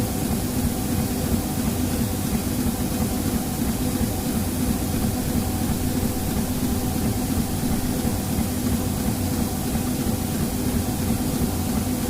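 Laser printer running, a steady mechanical hum with a constant low tone and an even whir over it.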